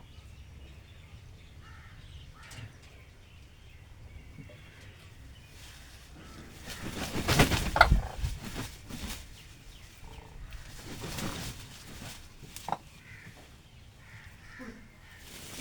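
Cranes splashing and flapping their wings while bathing in water. The splashing is loudest for about two seconds near the middle, with a second, softer spell a few seconds later.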